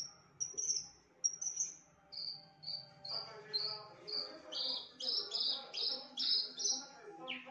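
Javan bush lark singing a fast run of short, high whistled notes, about three a second; partway through the notes drop lower and grow louder, each sliding down in pitch.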